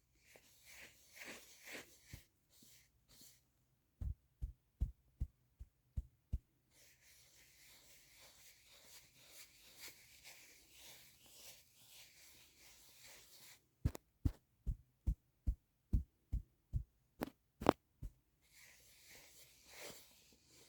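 A bag handled close to the microphone: stretches of crinkling rustle, broken by two runs of quick, dull taps on it, about seven a few seconds in and about ten more past the middle.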